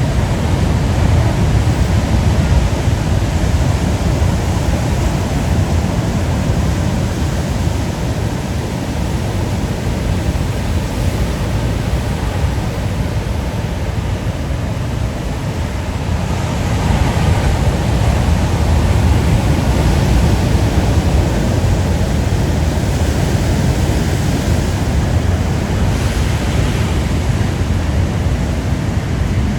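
Ocean waves washing against the rocky shore in a continuous rush, swelling louder about halfway through and again near the end, with wind rumbling on the microphone.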